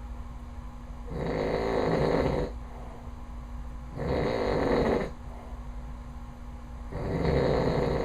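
A man snoring extremely loud in his sleep: three snores about three seconds apart, each lasting about a second, with a faint steady hum in the gaps between them.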